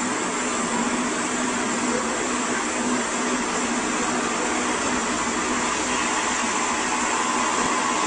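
Saw head of an AVG ЛРП-1200-5-ЛД aerated-concrete cutting line running: an electric-motor-driven circular saw giving a steady hiss over a low, constant hum.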